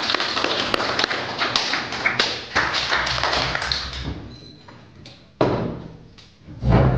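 A classroom of students applauding: many separate hand claps that thin out and fade about four seconds in, with a brief last patch of clapping after that. Just before the end a deep low thud comes in.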